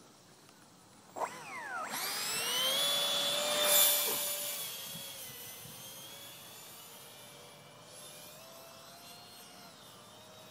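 Electric ducted fan of a small R/C jet model starting suddenly about a second in, its pitch gliding up to a steady high whine. It is loudest about four seconds in, then fades as the model flies off, the pitch wavering slightly with the throttle.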